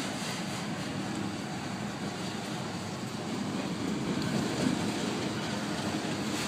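Freight train of autorack cars rolling past a grade crossing: a steady rumble of wheels on rail that swells slightly a few seconds in.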